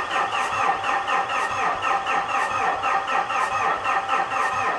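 Starter cranking the 2013 Mitsubishi Fuso FG's 4P10 four-cylinder turbo-diesel at an even rhythm of about five beats a second, never catching: the engine will not fire because the high-pressure fuel system is building no rail pressure.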